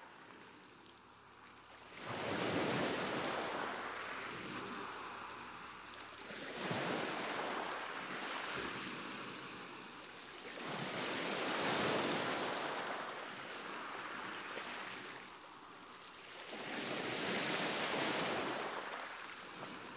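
A rushing noise that swells and fades four times, each surge lasting about four seconds, in the manner of surf breaking.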